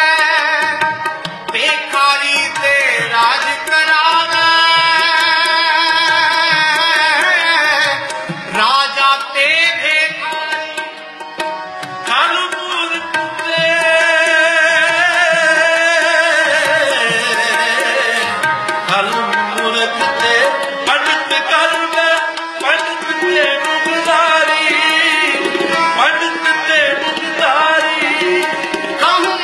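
Sikh kirtan: male voices singing a devotional hymn with harmonium and tabla accompaniment, the sung lines drawn out with a wavering ornament; the singing eases about ten seconds in before the full ensemble returns.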